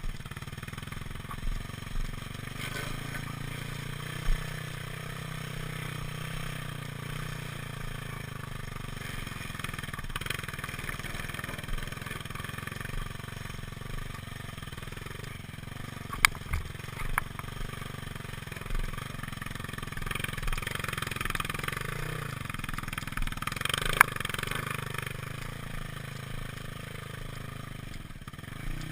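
Single-cylinder dual-sport motorcycle engine running steadily on a dirt trail, with a few sharp knocks.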